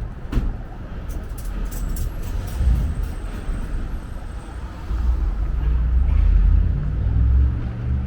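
Street traffic: a motor vehicle's engine running close by, growing louder about five seconds in, with a few light clicks early on.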